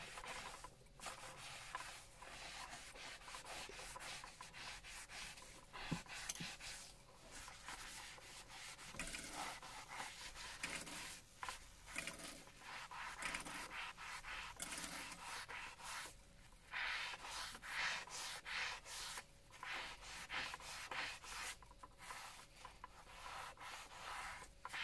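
Kitchen scouring pad scrubbing a wet slate clock case in repeated back-and-forth strokes, with short pauses between bursts of scrubbing.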